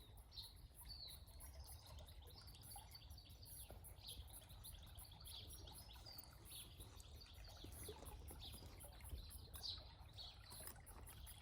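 Small stream trickling faintly, with birds chirping repeatedly over it and a steady low rumble underneath.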